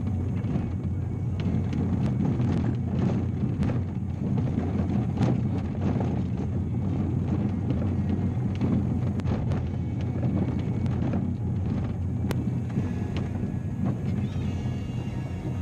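Inside a vehicle driving a rough dirt road: a steady low engine and tyre rumble, with scattered knocks and rattles from the uneven surface.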